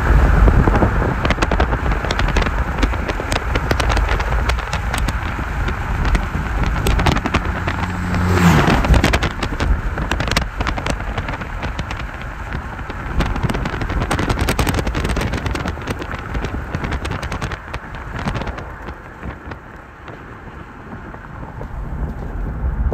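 Strong wind buffeting the microphone: a steady rush with crackling gusts, easing off for a few seconds near the end.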